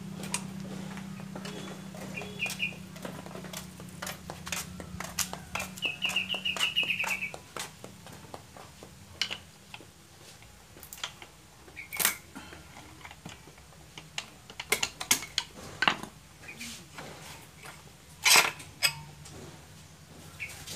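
Scattered metal clinks and knocks as the cylinder of a Honda Vario 125 engine is worked loose with hand tools and pulled off its studs. A low steady hum stops about seven seconds in, and a bird chirps briefly twice in the first half.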